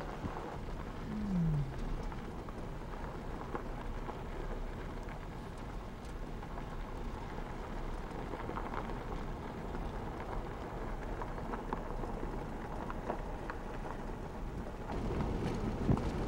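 Wind buffeting the camcorder microphone: a steady rough rustling hiss with fine crackle, and a short low falling tone about a second in.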